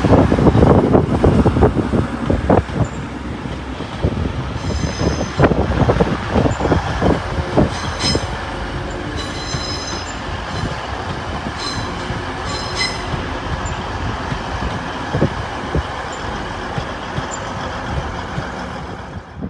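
A train running on the track: a loud rumble with rapid knocking for the first couple of seconds, then a steadier running noise. Several short high-pitched wheel squeals come between about five and thirteen seconds in.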